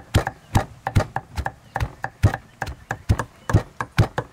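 Stone pestle pounding lemongrass and garlic in a heavy stone mortar: a steady run of dull thuds, about three strikes a second.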